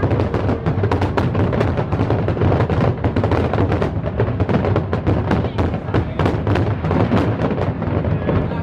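Fireworks bursting in a rapid, continuous barrage: many booms and crackles in quick succession over a steady low rumble.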